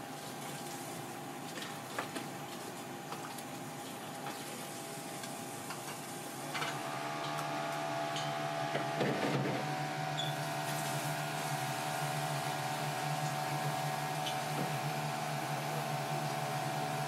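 Steady mechanical hum with several fixed pitches, which steps up louder about six and a half seconds in, with a few light clicks and knocks.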